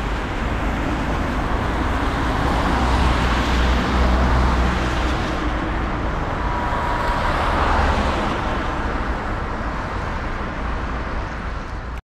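Vehicle traffic noise: a steady rush with a deep rumble that swells twice, about four and eight seconds in, as vehicles go by.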